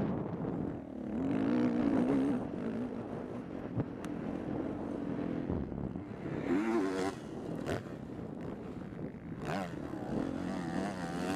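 Yamaha YZ450F four-stroke single-cylinder motocross bike engine heard from on board while racing, the revs climbing and dropping repeatedly through throttle changes and gear shifts.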